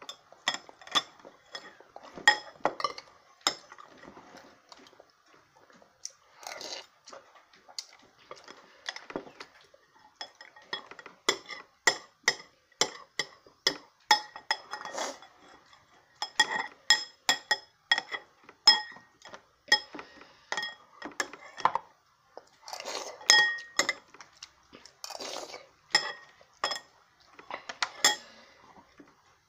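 Spoon clinking and tapping against a bowl, many quick strikes that ring briefly, coming in clusters with pauses between them.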